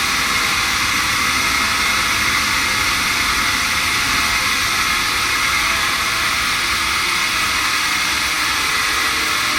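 110 kW variable-speed-drive two-stage air compressor running under test during commissioning, a loud, steady, even machine noise with a high hiss.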